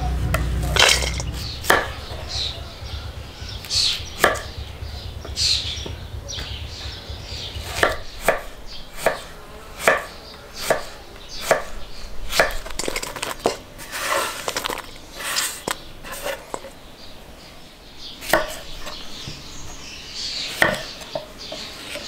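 Chef's knife chopping vegetables on a thick wooden cutting board: irregular sharp knocks of the blade on the wood, about one every half second to second, as cabbage and then radishes are cut. A low rumble sits underneath for the first eight seconds or so.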